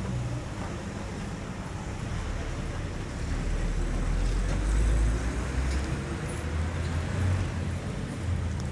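Street traffic noise, with a passing vehicle's low rumble swelling from about three seconds in, loudest near the middle, then easing off.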